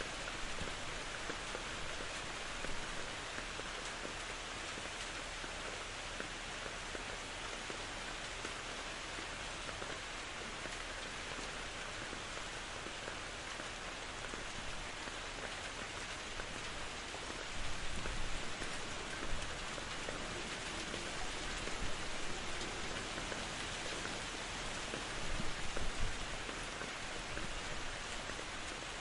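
Steady rain falling, briefly heavier a few times in the second half.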